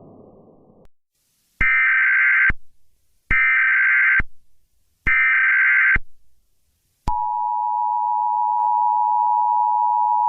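Emergency Alert System SAME header: three bursts of high digital data tones, each about a second long and about a second apart. Then the steady two-tone EAS attention signal (853 and 960 Hz) starts about seven seconds in and carries on. A low ambient drone fades out in the first second.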